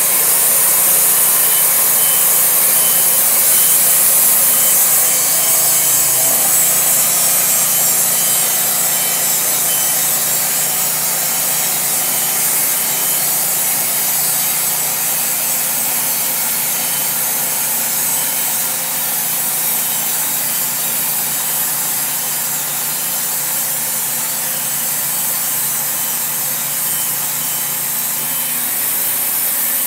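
Wood-Mizer LT40 portable band sawmill running, its engine driving the band blade through a Douglas fir piling: a steady, loud hiss of the cut over the engine.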